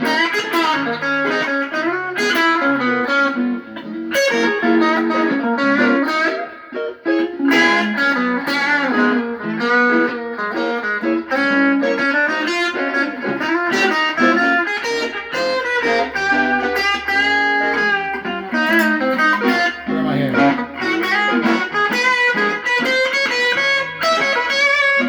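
Guitar playing quick single-note pentatonic lines in D flat, moving up and down the neck with many separate picked notes.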